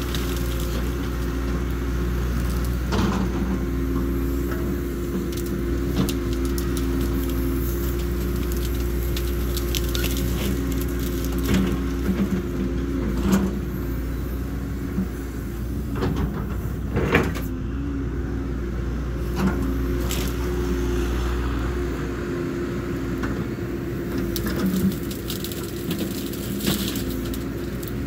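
Cat 314E excavator's diesel engine running steadily under work, with a number of sharp cracks and snaps of branches and brush breaking scattered through, the loudest about two thirds of the way in.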